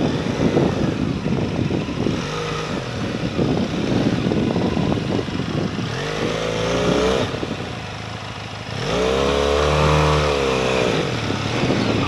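Motorcycle engine running at low speed over a rough dirt track. It revs up and eases off twice, about halfway through and again near the end.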